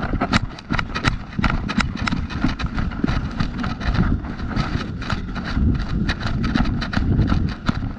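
Footsteps of a player moving quickly on foot over rough ground, with irregular crackles and clicks from the ground and from gear jostling, over a steady low rumble from the camera mic.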